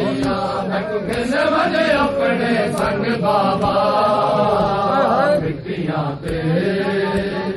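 Men chanting a mournful noha, with the slaps of hands beating on chests (matam) keeping time under the voices. The chant breaks off briefly about six seconds in, then resumes.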